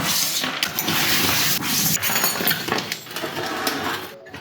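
Metal tools and parts clattering and clinking on a workbench as it is cleared, a dense jumble of knocks that stops shortly before the end.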